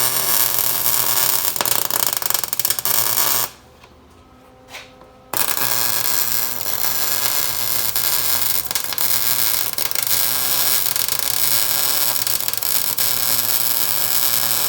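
Arc welding a steel patch onto a truck frame: a steady crackling sizzle from the arc, which stops for about two seconds around four seconds in and then starts again for the next bead.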